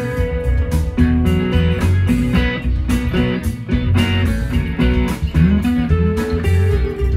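Electric guitar, a Fender Stratocaster, played through an amp in a free improvisation in the Mixolydian mode, with picked lead lines over low notes.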